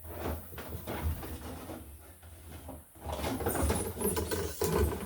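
Scraping and rustling of electrical wire and its pull cable being drawn by hand through a boat's wiring run, louder and busier from about three seconds in.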